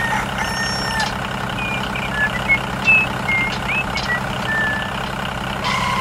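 Tractor engine running steadily at a low drone, with short high chirps scattered over it.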